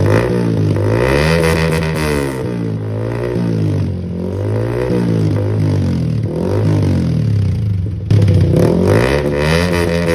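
Motorcycle engine with an aftermarket Villain carbon exhaust being revved in repeated blips, the pitch climbing and falling back about five times.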